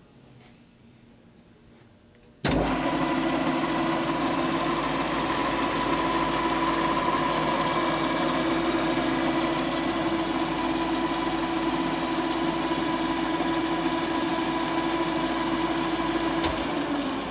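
Standard Modern 1333 gear-head lathe spindle started in high range: about two and a half seconds in, the headstock comes on abruptly and runs at a steady high speed, a steady hum with a gear whine. Near the end it is switched off and starts to slow down.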